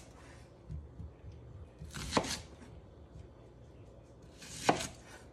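A kitchen knife cutting a peeled onion into wedges on an end-grain wooden cutting board: two cuts, about two seconds in and near the end, each ending sharply as the blade meets the board.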